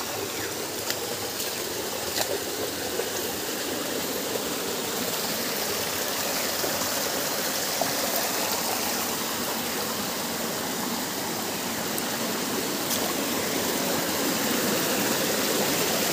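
Stream water flowing, a steady rush that grows slowly louder.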